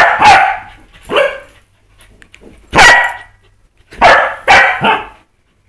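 Pembroke Welsh corgi barking excitedly while chasing a laser dot: about six or seven sharp barks in irregular bunches, the last three in quick succession.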